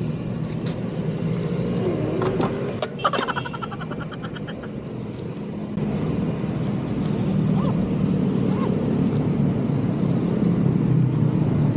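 Fuel dispenser pump humming steadily as a scooter's tank is filled. The hum gets louder about six seconds in as the fuel flows. A short clatter of the metal nozzle comes around three seconds in.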